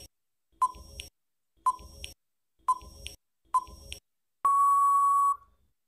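Quiz countdown timer sound effect: four short beeps about once a second, then one longer steady beep lasting about a second near the end, signalling that time is up.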